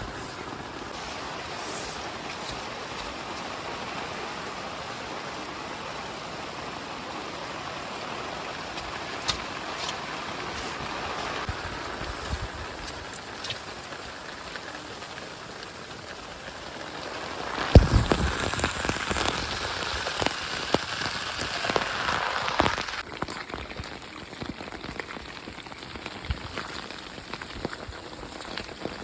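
Rain falling steadily in an even hiss of drops. About two-thirds of the way through comes a louder spell of close taps and knocks lasting several seconds, then the rain settles back.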